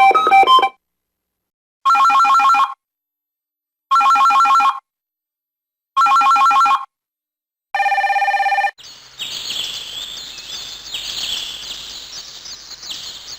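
Samsung SGH-E330N ringtones played on a Samsung Blackjack II: an electronic telephone-bell ring with a fast warble, repeated three times about two seconds apart. It is followed by a short buzzing tone and then, from about nine seconds in, a noisy sound effect full of quick chirps lasting about four seconds.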